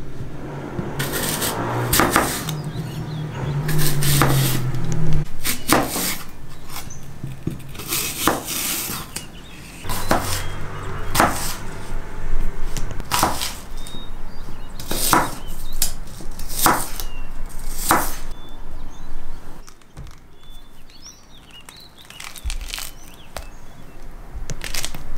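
A kitchen knife slicing through apples on a bamboo cutting board. Each cut ends in a sharp knock of the blade on the wood, about one or two a second at uneven spacing. The knocking stops a few seconds before the end, and quieter handling of fruit follows.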